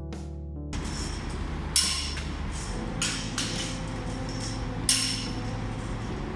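Hammer striking metal at a semi-trailer's wheel: sharp, ringing blows one to two seconds apart, over steady shop background noise.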